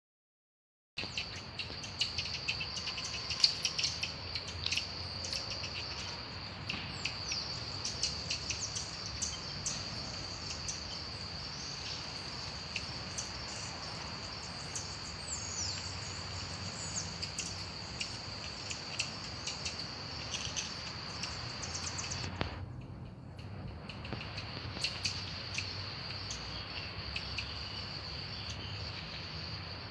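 Steady high-pitched insect chorus with many short, sharp high chirps scattered through it. It starts after about a second of silence and breaks off for about a second roughly three-quarters of the way through.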